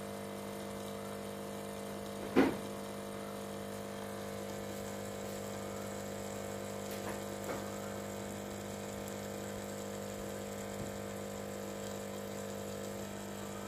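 Aquarium filter pump running with a steady hum while its outlet stirs the water into a stream of bubbles. A single short knock sounds about two and a half seconds in.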